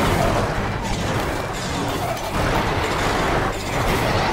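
Cartoon bulldozer sound effect: a rumbling engine and grinding tracks, spinning as the machine strains against being stuck fast between two tree trunks.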